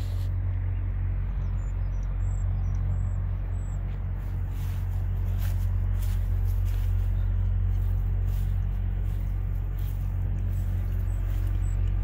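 Outdoor ambience: a steady low rumble with a few soft knocks, and short runs of faint high chirps twice, like small birds.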